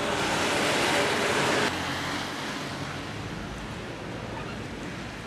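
Steady street noise of traffic on a snowy road. It is loudest for about the first second and a half, then drops suddenly to a quieter, even hiss.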